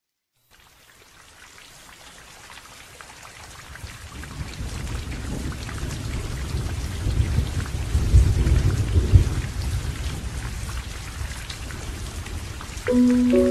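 Heavy rain falling, fading in over the first few seconds, with a low rumble of thunder that builds to its loudest about eight to nine seconds in. Near the end, sustained harp notes come in.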